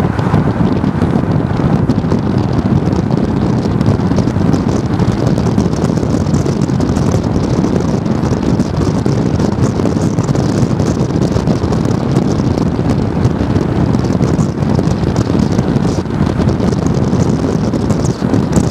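Strong wind blowing across the microphone, a loud, steady rush of noise that is heaviest in the low end.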